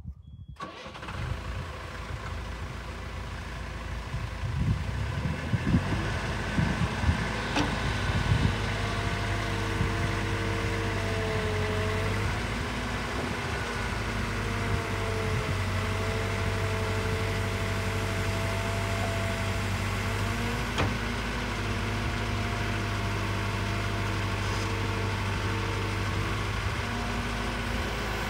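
CAT 312BL tracked excavator's diesel engine running while the boom and bucket are worked, with a steady low hum and a whine that rises and falls in pitch. There are several clanks in the first several seconds.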